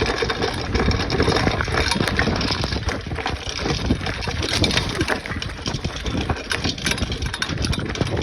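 A bicycle rolling fast down a dirt hill: tyres crunching over loose dirt and sand, the bike rattling with many small knocks, over a steady low rumble.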